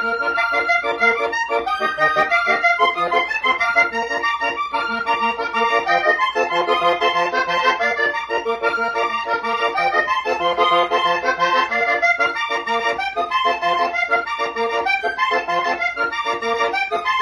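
Accordion playing a tune without pause: a moving melody over evenly pulsing bass notes and chords.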